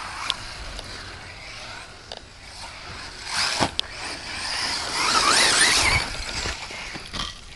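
Durango 1/10-scale electric off-road RC buggy driving on a dirt track: electric motor whine and tyres scrabbling on the dirt. The sound swells as the buggy comes close, loudest about five to six seconds in, with short rising whines as it accelerates and a sharp click a little before four seconds.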